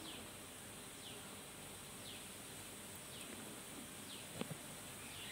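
Faint bird chirping: short falling chirps repeating at uneven intervals over a quiet background, with one soft knock a little past the middle.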